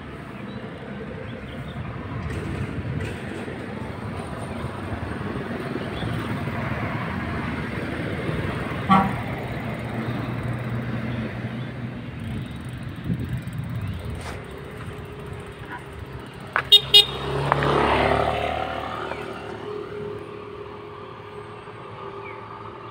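Road traffic passing a cyclist, with a vehicle horn beeping twice in quick succession about three-quarters of the way through, followed by a vehicle passing close by.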